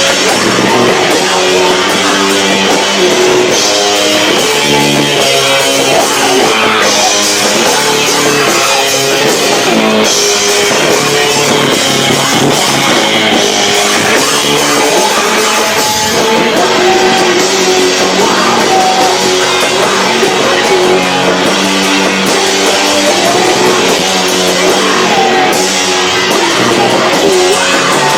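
A live rock band with electric guitar and drums playing continuously and very loud. It is recorded on a camcorder microphone that is overloaded by the volume, so the sound is distorted.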